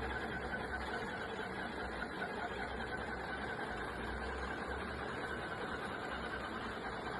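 Steady background noise: an even hiss with a low rumble and a faint steady tone, unchanging throughout.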